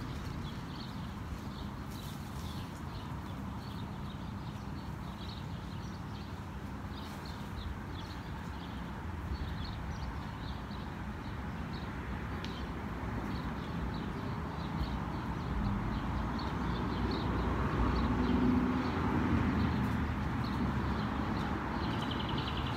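Footsteps and light irregular ticking and rustling as a bag of food is poured out piece by piece onto the ground while walking, over steady outdoor noise. A low rumble swells in the second half.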